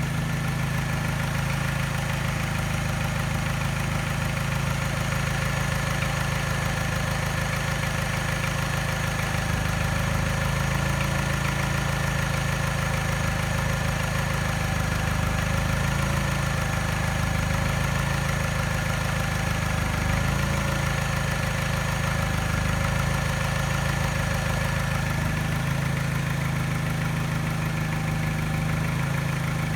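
Mini engine idling steadily with a mild tap, which comes with a very slight miss that makes the engine vibrate. The tap persists even after a new timing chain, tensioner and piston rings.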